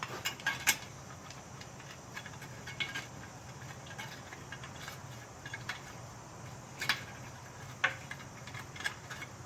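Scattered metallic clicks and taps of hand tools and a bolt being fitted into the engine block, over a steady low hum.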